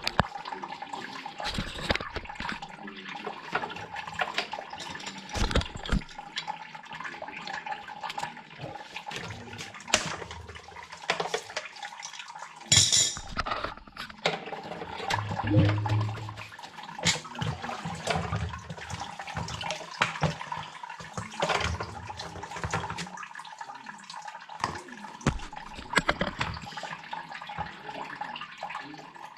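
Water sloshing and splashing in a sump pit, with irregular clunks and knocks from the sump pump and its piping being handled.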